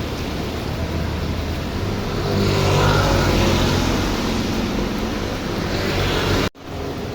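Heavy rain pouring steadily, with a car's engine humming and tyres on a wet road. The sound cuts out for a split second near the end.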